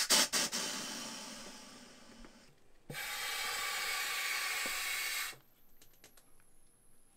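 Air hissing through a rebuilt Mares XR power inflator as its buttons are tested. A loud rush at the start fades away over about two seconds, then a steady hiss lasts about two and a half seconds and cuts off.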